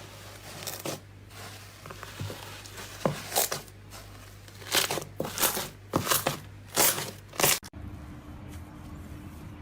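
Slime being squeezed and worked by hand, giving a run of sharp crackling, popping squishes. Near the end it cuts abruptly to a low steady hum.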